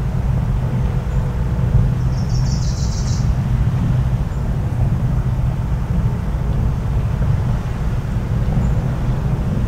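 Steady low rumble with no breaks, and a short, high bird trill about two to three seconds in.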